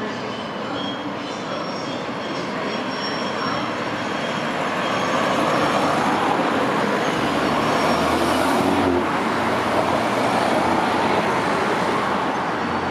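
Cars driving past close by, tyre and engine noise building about four seconds in and loudest over the middle and later part, over a Class 220/221 Voyager diesel train running across the railway bridge in the background.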